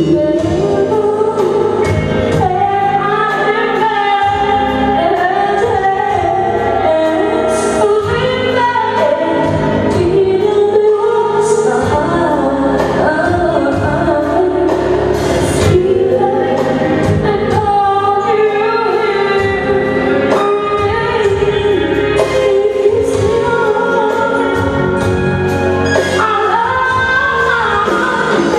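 Live band playing a song: a lead vocal sung over drums and backing instruments, with sharp drum hits every few seconds.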